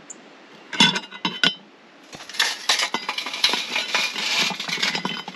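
Glowing heat beads tipped from a metal pail onto a cast-iron camp oven lid. A few knocks come about a second in, then from about two seconds in a dense run of clinks and scrapes as the beads tumble and pile up on the lid to give heat from above.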